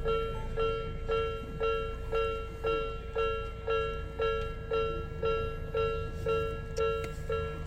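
Level-crossing warning bell ringing about twice a second, each clang fading quickly, warning that a train is approaching. A low steady rumble runs underneath.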